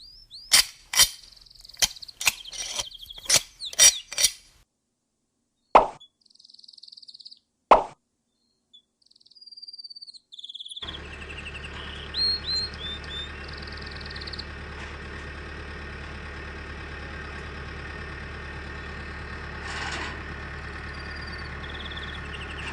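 A quick run of sharp plopping pops mixed with short bird-like chirps, then two single pops a couple of seconds apart. After a silent gap, a steady hissing background with a low hum comes in, with birds chirping now and then.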